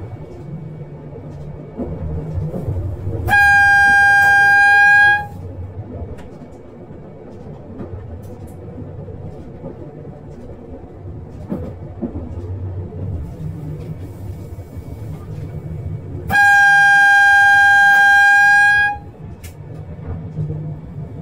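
A diesel train's horn sounded twice as one high, steady note, each blast about two to two and a half seconds long, the first about three seconds in and the second about sixteen seconds in. Between the blasts the train runs with a steady low rumble.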